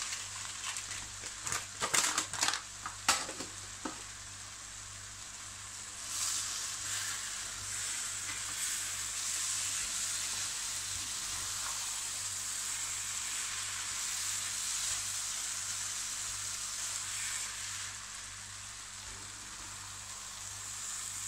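Bulgur and chopped vegetables frying and sizzling in oil in a large pan while a spatula stirs them through; this is the dry grain being toasted before the liquid is added. A few sharp clicks stand out in the first few seconds over the steady sizzle.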